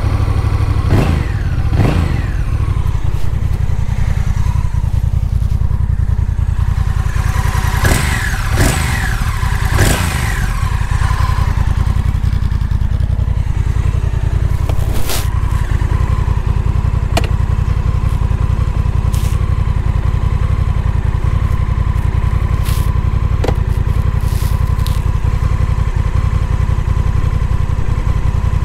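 Honda Rebel 1100's 1084 cc parallel-twin engine idling at a standstill with a steady, pulsing exhaust rumble. Its pitch shifts briefly a couple of times early on, and a few sharp clicks and knocks come later.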